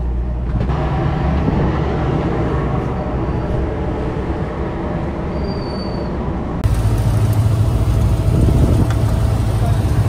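Passenger ferry's engine running, a steady low drone with general noise above it. About two-thirds of the way in it steps abruptly louder and heavier, with a strong low hum.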